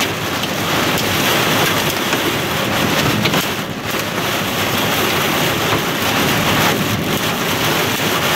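Heavy rain beating on a car's windshield and roof, heard from inside the moving car: a loud, steady downpour.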